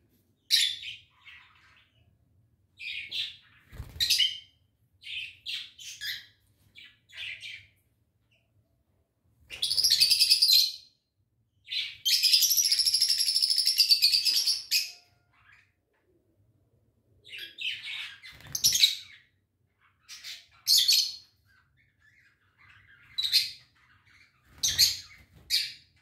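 Peach-faced lovebirds calling: shrill chirps in short bursts, with two louder runs of rapid chattering about ten and twelve seconds in, the second lasting about three seconds.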